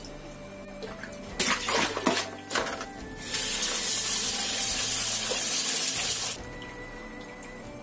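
Mushrooms being swished by hand in a bowl of water, with a few splashes. Then a kitchen tap runs hard into the bowl for about three seconds and shuts off abruptly.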